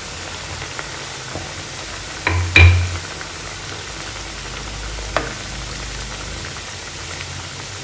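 Chicken-stuffed dough snacks sizzling steadily as they fry in hot oil over a medium flame. A knock about two and a half seconds in and a fainter click about five seconds in.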